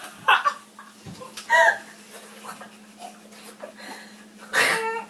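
Short bursts of people's voices, laughing and gasping, three of them with the loudest near the end, over a faint steady hum.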